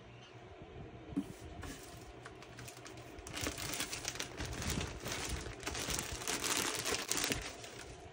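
Clear plastic bag crinkling as a hand lifts a plastic-wrapped skein of yarn out of a cardboard box. The crinkling starts about three seconds in and dies down near the end, after a single light tap about a second in.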